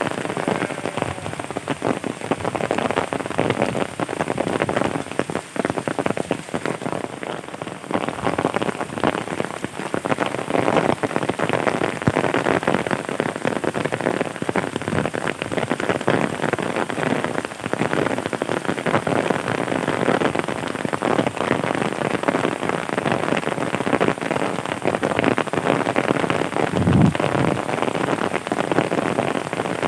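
Heavy rain pouring steadily, a dense patter of drops hitting surfaces close by. Near the end there is a brief low thump.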